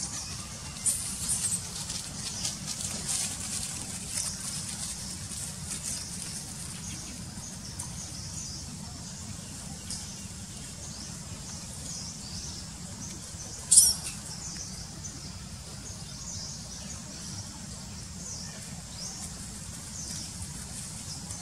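Forest ambience with small birds chirping repeatedly over a low steady rumble, and one sharp, loud high squeak about fourteen seconds in.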